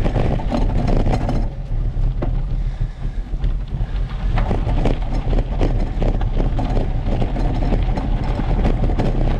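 Bicycle rolling over a rough dirt and gravel trail, its tyres and frame giving frequent small rattles and knocks over the bumps, with wind on the microphone as a steady low rumble.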